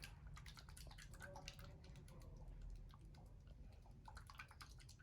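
Faint, irregular clicking of a small plastic bottle of slime mix being shaken so that the slime sets.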